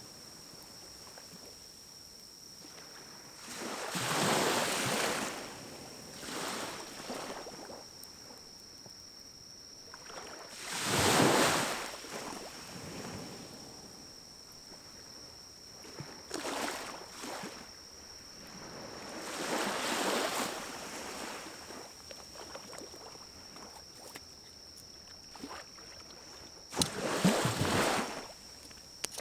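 Pine cones burning in a small wood-burning camp stove: a low hiss with faint crackles, and a whooshing swell every few seconds, about six in all.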